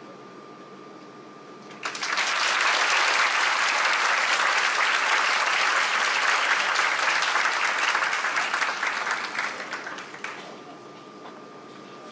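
Audience applauding, starting suddenly about two seconds in, holding steady, then thinning out and stopping about ten seconds in.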